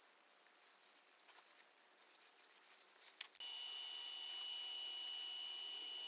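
Faint handling rustles, then a click a little over three seconds in, after which a Laguna Revo 18|36 wood lathe is heard running with a steady high-pitched whine that begins abruptly.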